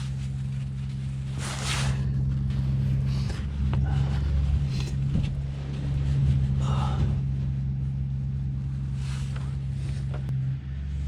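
A steady low mechanical hum, like an idling engine, runs throughout. Over it come several short scrapes and rustles as a rubber coolant hose is pushed and worked into place.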